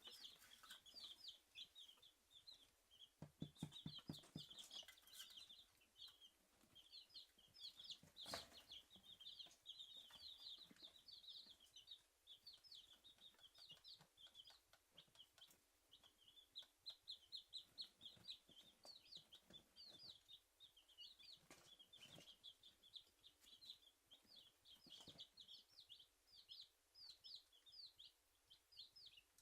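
Three-day-old Dominique chicks peeping constantly: quick, high, falling chirps, several a second, with a few light taps mixed in.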